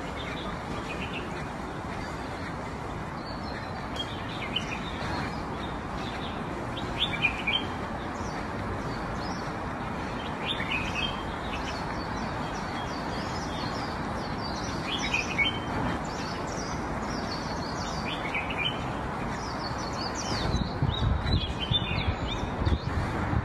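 Small birds chirping in short, high calls every few seconds over a steady background hiss. Near the end there is a quick run of low thumps.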